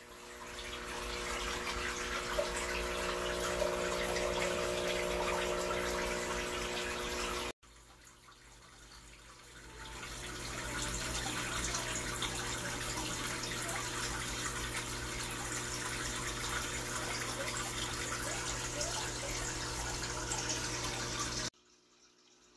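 EHEIM 2080 canister aquarium filter running, a steady motor hum with a few even tones under rushing, splashing water noise; the uploader traced this noise to a corroded impeller. The sound breaks off sharply about seven and a half seconds in, resumes, and cuts off again near the end.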